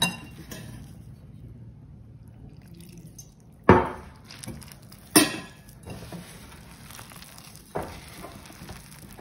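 Hand kneading a stiff fenugreek-leaf and gram-flour dough in a ceramic bowl: quiet rubbing and pressing of the dough, broken by four sharp clinks of the bowl, the loudest a little over a third of the way in.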